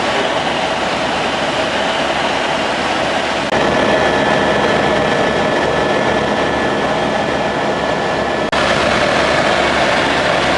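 Tour helicopter's turbine engine and rotor running at flight power: a loud, steady din with a thin high whine running through it. The sound changes abruptly twice, about a third of the way in and again near the end.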